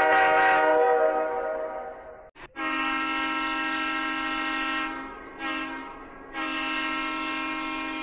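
Diesel locomotive air horns. One horn sounds and dies away over about two seconds, then another horn gives a long steady blast, a short one, and a second long one.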